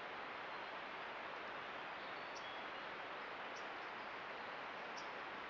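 Steady hiss from a trail camera's microphone, with three faint, short, high chirps from a small bird about two and a half, three and a half and five seconds in.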